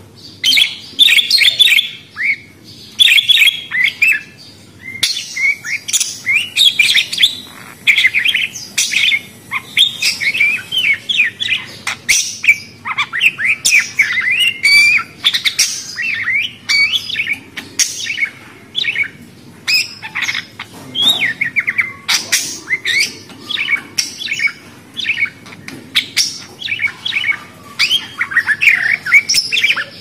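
A flock of small pet parrots chattering: a dense, continuous run of short, quick chirps and warbling calls from several birds calling over one another.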